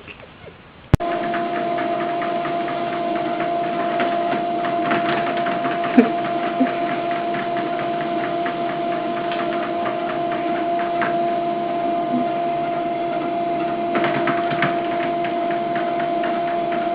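Electric treadmill running: a steady motor whine holding two tones, with faint rapid ticking. It starts abruptly about a second in.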